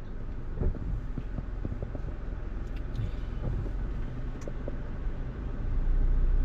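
Car engine and road noise heard from inside a moving car: a steady low rumble with scattered small knocks and rattles, growing louder near the end.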